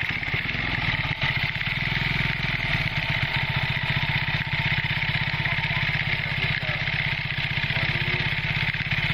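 Automatic scooter engine starting up and running steadily with the CVT cover off, turning the exposed drive belt and welded secondary clutch: a test run of the rebuilt clutch.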